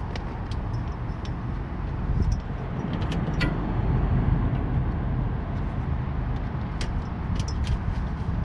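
Outdoor AC condensing unit running with its new condenser fan motor, a steady low rumble. Sharp clicks of tools and parts being handled come several times over it.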